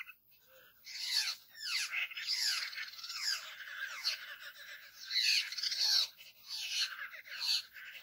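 A flock of laughingthrushes (poksay) calling over one another in an irregular, chattering jumble of squawks that rise and fall in pitch. The calls come in bouts, with short lulls about a second and a half in and again around six seconds.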